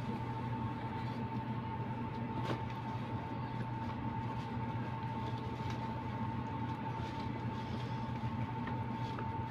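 A steady machine hum with a constant thin whine over a low drone, and one soft click about two and a half seconds in.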